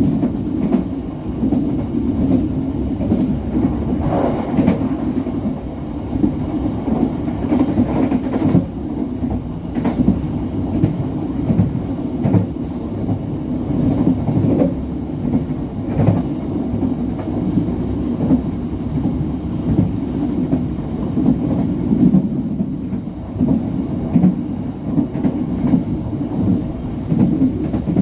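Walahar passenger train running along the line, heard from the rear of the train: a steady rumble of the wheels on the rails, with scattered clicks.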